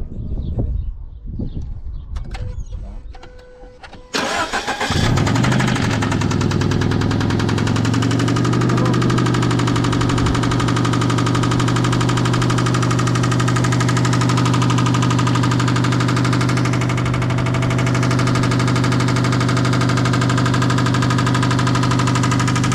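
Scion FR-S's 2.0-litre Subaru boxer four-cylinder engine starting about four seconds in and settling into a steady idle; the engine is known to have rod knock. A few faint knocks and handling sounds come before it starts.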